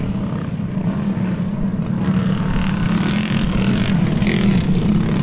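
A pack of small racing engines running together at speed, a steady buzz, with wind buffeting the microphone.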